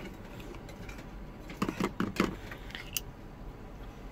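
Clicks and knocks from a portable hand coffee grinder being twisted apart and its grinder section lifted off the cup: a quick cluster of sharp clicks about halfway through, then one more click near the end.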